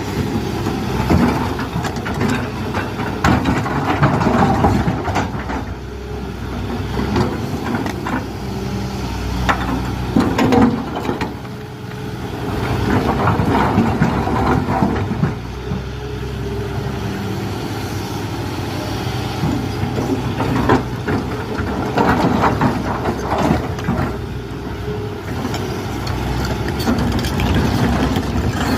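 Kobelco excavator's diesel engine running steadily while it digs in rock. Its bucket repeatedly scrapes and clanks against the rock.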